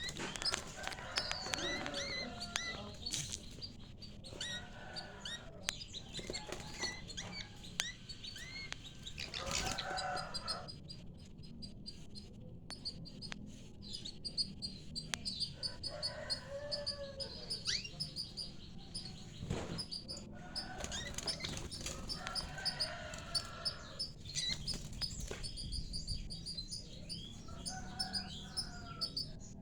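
Canaries chirping, short high chirps repeating throughout, with bursts of lower, fuller calls every few seconds.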